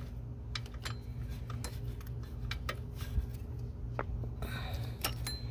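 Scattered light metallic clicks and clinks of hand tools and metal engine parts being handled, over a steady low hum, with a short rustle near the end.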